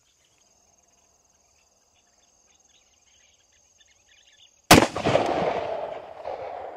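A single shot from a Smith & Wesson 500 Magnum revolver, about four and a half seconds in, followed by a long echo that dies away over about two seconds.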